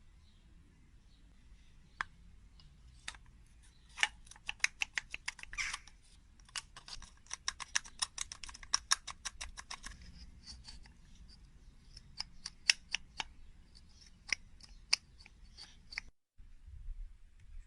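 Sharp clicks and taps: a few single ones, then fast runs of several a second for about six seconds, then scattered again. The sound drops out briefly near the end.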